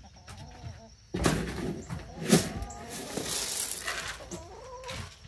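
Galvanized metal feed can being opened: a sudden metal clatter about a second in and a sharp clank about two seconds in as the lid comes off and goes down, then a plastic scoop rustling into dry chicken feed. Chickens cluck briefly near the start and near the end.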